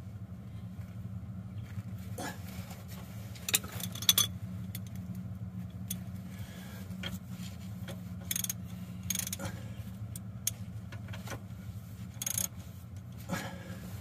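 Scattered metal clinks and knocks as a dozer's oil drain plug is threaded back in by hand and snugged up with a ratchet. A steady low hum runs underneath.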